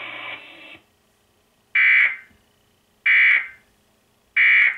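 Emergency Alert System end-of-message data bursts over a NOAA weather radio broadcast: three short, shrill buzzing bursts about 1.3 seconds apart, each with a brief fading tail.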